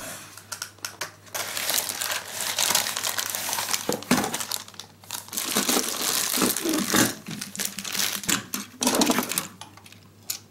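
Plastic packaging crinkling as a Plarail 700 series Shinkansen toy train is pulled from its box and unwrapped, with small clicks and knocks of the plastic cars being handled. It starts about a second in and dies down near the end.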